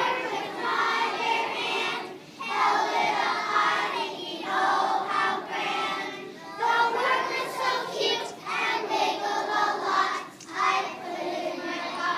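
A large group of kindergarten children singing together in unison, in phrases of about four seconds with short breaks between them.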